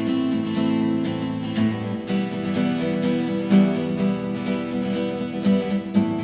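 Acoustic guitar strummed in a steady rhythm, playing chords with no singing.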